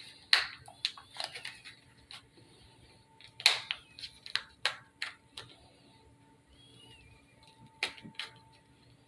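Hands working at the packaging of an LED flashlight: irregular clicks and taps of cardboard and plastic, with a couple of sharper knocks among them.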